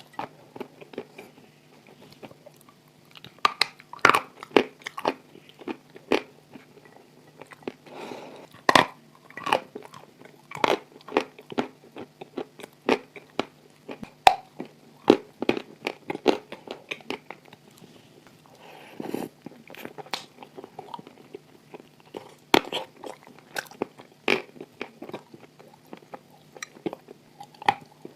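A person biting into and chewing crunchy edible clay: sharp crunches at irregular intervals with softer chewing between. A faint steady low hum runs underneath.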